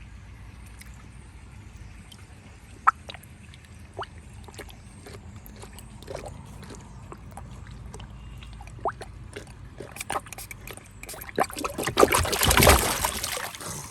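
Water dripping and trickling in short scattered drops, then a loud splashing and sloshing of water for about two seconds near the end.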